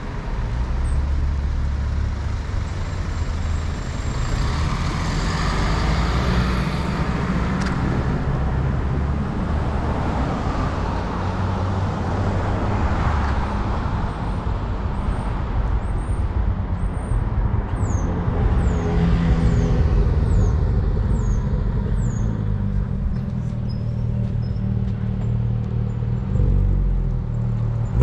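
Road traffic: a steady rumble of cars and engines, with vehicles swelling louder as they pass. About twenty seconds in, a run of short, high, falling chirps repeats several times over the traffic.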